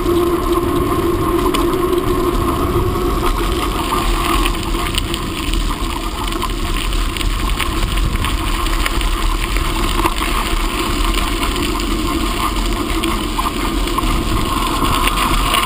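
Steady rolling noise of a bicycle being ridden: tyres running on the path, with a constant low rumble from air moving past the microphone.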